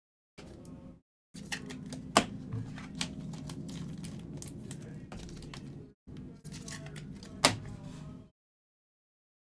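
Hands opening an Optic football card pack: the wrapper crinkles and tears and the cards shuffle, with two sharp clicks, one about two seconds in and one near the end, before it cuts off.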